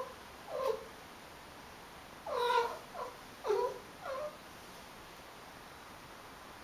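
A domestic cat meowing: about five short calls, each falling in pitch, in the first four and a half seconds, the longest and loudest about two and a half seconds in.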